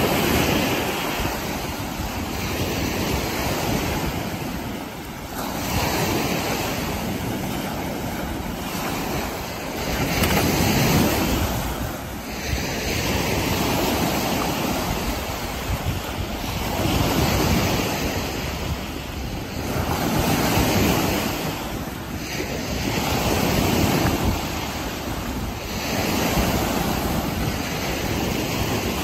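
Small Lake Erie waves breaking and washing up a sand-and-pebble beach, the surf swelling and fading every few seconds. Wind rumbles on the microphone.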